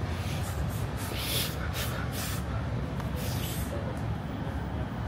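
City street ambience: a steady low traffic rumble, with a run of short hisses over the first few seconds.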